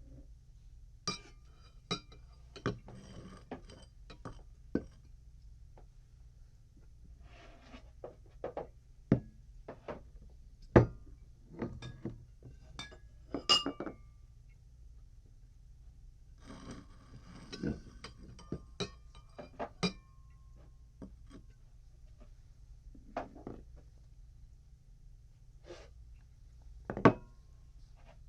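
Glassware clinking, tapping and being set down in an irregular series of sharp clinks, some ringing briefly, with bursts of rattling. The loudest knocks come about eleven seconds in and again near the end.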